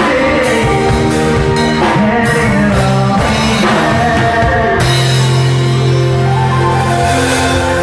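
A rock band playing, with singing over drum kit and cymbals; a long held low note comes in about five seconds in.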